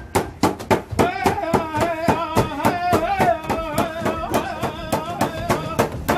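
Native American powwow-style drum song: a steady, fast drumbeat, with a high, wavering singing voice joining about a second in.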